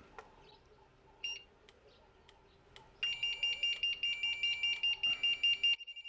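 Electric fence energizer alarm going off: one short high beep about a second in, then from about halfway a fast, evenly pulsing high-pitched beeping, about seven pulses a second, that drops quieter near the end. The fence has been put into alarm, which switches the alarm relay.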